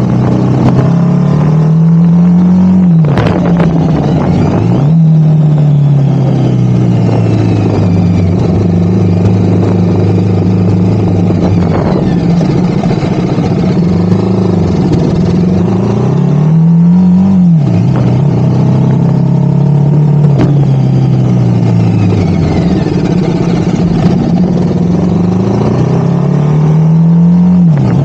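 BMW G 310 motorcycle's single-cylinder engine pulling under throttle. The revs climb and then drop off sharply three times, about three seconds in, near the middle and at the end, with a long slow sag between, over steady road and wind noise.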